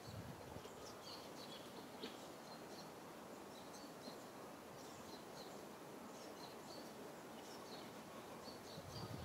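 Faint outdoor ambience: a steady low hiss with many short, high chirps scattered throughout, from birds calling in the background.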